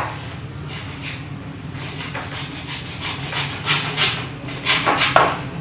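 Repeated scraping strokes of a hand tool worked back and forth, starting about two seconds in and getting louder toward the end, over a steady low hum.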